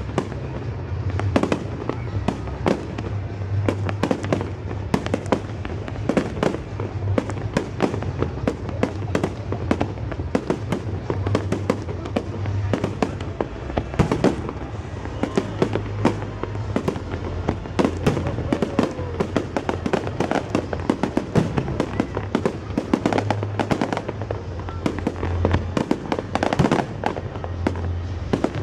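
Fireworks display bursting continuously, with rapid bangs and crackles following one another.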